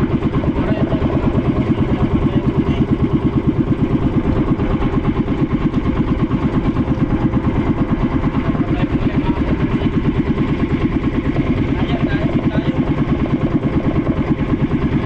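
Small boat engine running steadily, with a fast, even put-put pulse.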